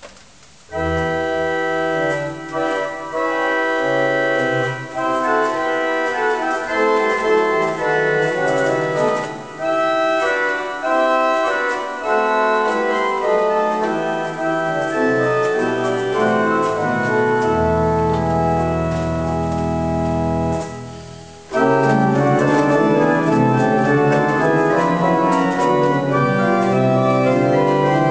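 1911 Agati-Tronci pipe organ playing loud sustained full chords. A low pedal note is held for a few seconds past the middle, and the sound breaks off briefly about three quarters through before the full chords return.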